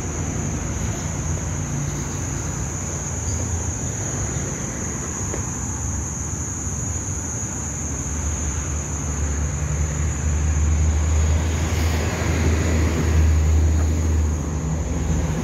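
Road traffic: a steady low rumble of passing vehicles that grows louder in the second half as a vehicle goes by close, over a constant high-pitched whine.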